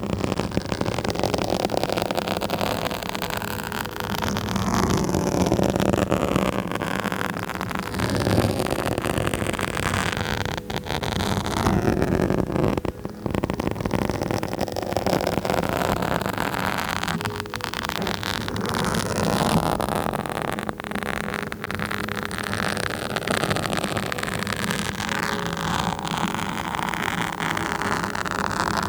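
Scratching directly on a microphone: a dense, continuous scratchy rustle that keeps swelling and easing, over a steady low hum.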